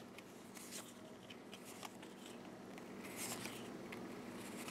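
Faint, scattered light clicks and soft rustles of trading cards and booster packs being handled, over a low steady hum.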